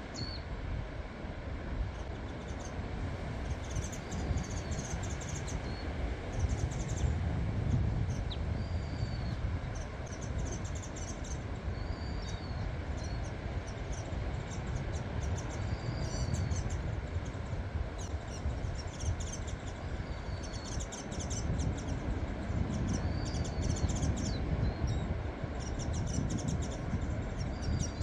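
Strong wind buffeting the microphone, swelling in gusts about a third of the way in and again near the end. Over it a bird repeats a short call every few seconds, with bursts of higher chirping.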